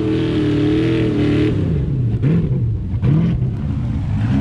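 A competition 4x4 truck's engine runs steadily for about a second and a half, then is revved up and down several times.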